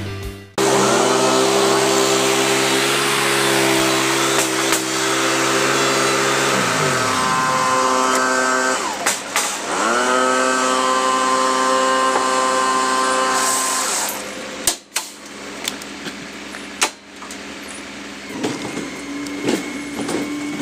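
Small gasoline engine of lawn equipment running at high throttle. Its pitch drops about halfway, dips briefly, then rises back to full speed, and the engine sound falls away a little past the middle, leaving scattered clicks and knocks.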